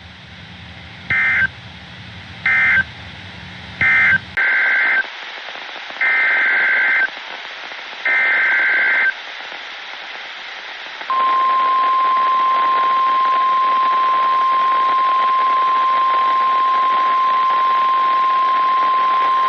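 NOAA Weather Radio Emergency Alert System signalling. First come three short bursts of warbling two-tone SAME data: the end-of-message code. Then three longer SAME header bursts, each about a second apart, and then the steady single-pitch weather radio warning alarm tone, held for about nine seconds, that heralds a tornado warning.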